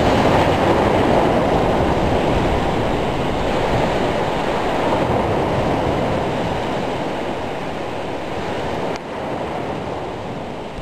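Storm surf: waves breaking on a rough sea with wind, a steady rushing noise that slowly fades.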